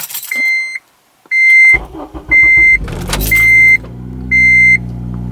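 Honda Civic Si's 2.0-litre four-cylinder cranked on a cold start: it catches about two seconds in with a brief flare, then settles into a steady idle, heard from inside the cabin. A dashboard warning chime beeps about once a second throughout and is the loudest sound.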